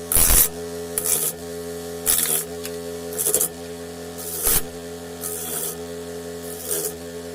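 Electric coconut grater built from a used water pump motor, running with a steady hum while something is pressed against the spinning grater in short rasping strokes about once a second.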